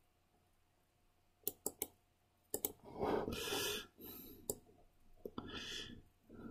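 Computer mouse clicking: a scattering of sharp single clicks, a few in quick pairs, as a box is drawn and the view is turned in 3D modelling software. Two soft hissing noises, each under a second, come between the clicks.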